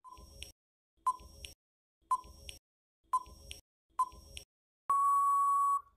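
Quiz countdown-timer sound effect: five short ticks, one a second, each with a fainter echoing tick just after. Near the end comes one steady beep lasting about a second, marking that time is up.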